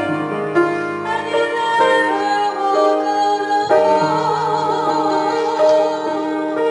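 Slow instrumental piano music, held chords changing every second or so.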